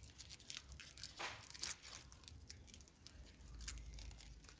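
Thin stretchy PE plastic film being pulled off a roll and wrapped tightly around an air-layering bundle, crinkling and crackling faintly in small irregular bursts.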